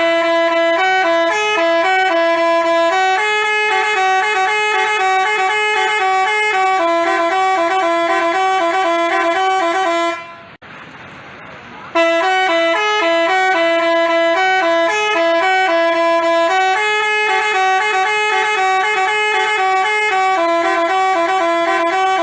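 Basuri telolet multi-tone horn playing a tune in held, stepping notes. It breaks off for about a second and a half near the middle, then starts the tune again.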